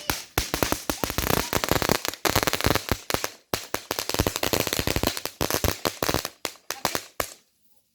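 Firecrackers going off in rapid succession, a dense crackle of sharp pops with a brief break midway, stopping abruptly near the end.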